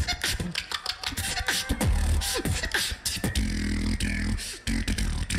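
Live battle beatboxing: a fast beat of sharp vocal snares and clicks over deep bass kicks, with quick falling pitch sweeps and a held low bass hum about halfway through.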